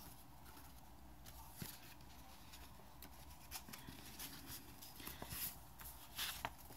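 Faint rustling and light taps of paper sticker sheets being handled, over quiet room tone, a little busier near the end.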